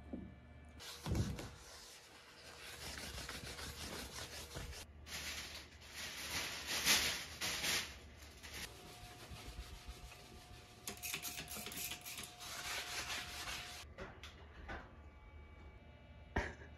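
Rubbing and rustling of a floor sheet being laid out and smoothed by hand, in long stretches with brief pauses, with a soft thump about a second in.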